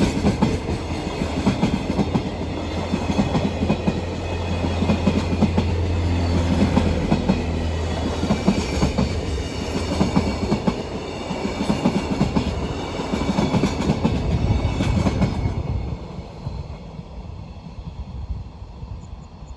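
Freight train wagons rolling past, their wheels clattering steadily over the rail joints. About fifteen seconds in, the sound drops off sharply as the end of the train goes by, leaving a fading rumble.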